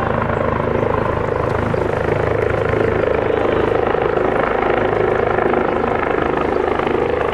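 Airbus Helicopters H145 twin-turbine helicopter climbing away after lift-off: a steady, loud rotor beat with a rhythmic low thudding under the turbine and rotor noise.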